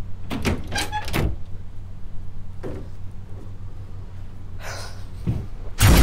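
Knocks and rustles of a phone being grabbed and carried. Near the end a sudden, very loud explosion breaks in and keeps rumbling.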